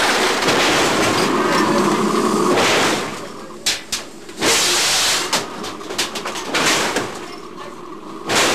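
Simulated depth-charge attack inside a film-set submarine interior: a loud rushing, hissing noise for about three seconds, then shorter bursts of it mixed with sharp knocks and rattles.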